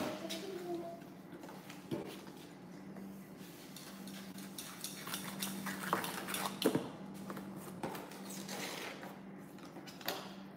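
Plastic sand-toy scoops and moulds clicking and knocking lightly against a plastic tub of kinetic sand, a few scattered taps with the sharpest knock about two-thirds of the way in.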